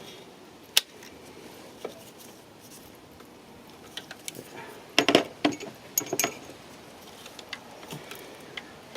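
Metal tools and small parts clicking and clinking as they are handled in a car's engine bay: a sharp click about a second in, then a busier clatter around five to six seconds in.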